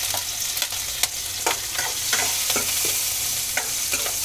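Chopped green chillies and cumin seeds sizzling in hot ghee in a steel kadhai, with a steel spoon stirring and giving a few light clinks against the pan.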